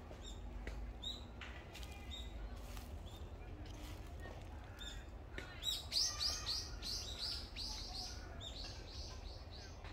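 Small birds chirping: scattered short high chirps, then a quick run of about a dozen falling notes a little past halfway, over a steady low rumble.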